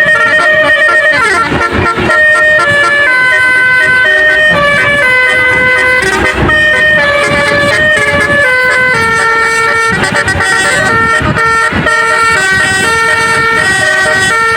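A bus's Basuri telolet horn playing a melody in held notes that change pitch every half second or so, over the low rumble of the bus.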